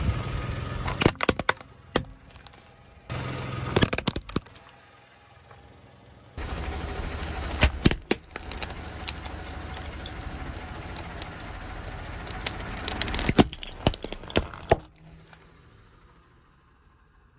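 Hard plastic snapping and cracking under a car tyre in several short bursts. In the longest stretch a pyraminx puzzle is crushed, with loud sharp cracks over a steady low rumble from the car.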